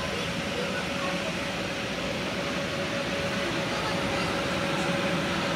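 Steady noise of the electric air blowers that keep bounce-house inflatables up, with a faint steady hum, under a background of children's voices.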